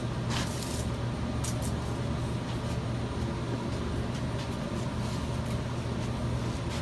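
Steady low machine hum over a faint hiss, with a few light clicks about half a second in.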